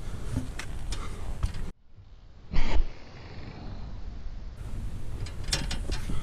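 Scrambling noise on a via ferrata: scrapes, rustles and clicks of gloves and boots against rock and iron climbing rungs. The sound drops away abruptly a little before two seconds in, and a loud short burst of noise follows soon after. Clicks cluster again near the end.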